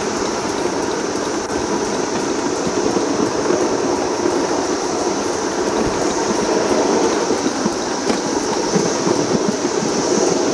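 Ride-on live steam miniature locomotive and its riding cars running along the track: a steady rumble and rattle of wheels on rail with a faint, quick, regular ticking.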